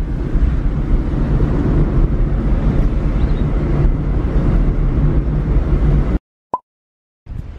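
Steady low rumble of wind and road noise in a moving car with a window open. It cuts off suddenly about six seconds in, and a short blip sounds in the silence that follows.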